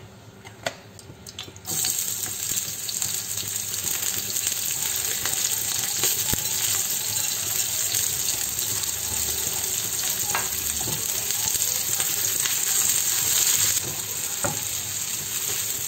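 Sliced onions sizzling in hot oil in a frying pan, the sizzle starting suddenly about two seconds in as they go in, and stirred with a silicone spatula. A few light knocks of the spatula against the pan; the sizzle eases a little near the end.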